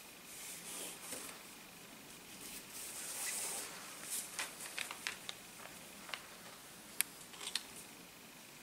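Cotton macramé cord handled while knotting by hand: soft swishing of cord drawn through the fingers, then a scatter of small sharp ticks, the sharpest about seven seconds in.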